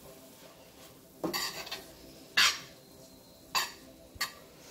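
A spoon stirring chopped greens in a stainless steel sauté pan, scraping and clinking against the pan four times about a second apart.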